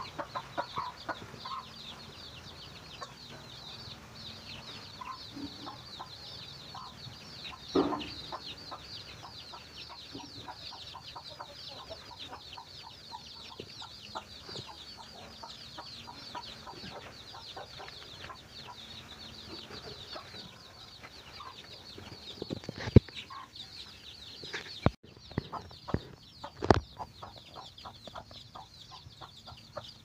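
A mother hen clucking low and intermittently while her chicks peep in a constant high stream as she scratches for food. Several sharp knocks come from about 23 to 27 seconds in.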